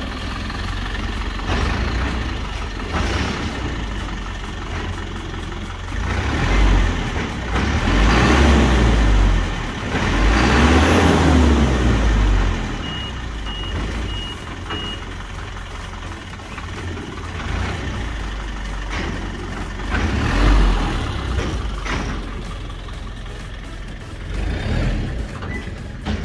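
Truck engine running and revving hard in several surges, loudest about six to twelve seconds in, as it strains to pull away with too little grip at the rear wheels. A short row of high beeps sounds in the middle.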